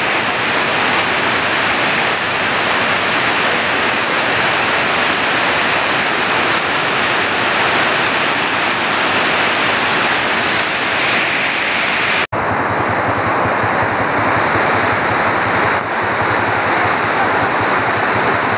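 Muddy floodwater rushing in a loud, steady torrent across a brick-paved canal apron, let through the opened canal gates. The rush cuts out for an instant about twelve seconds in, then carries on a little duller.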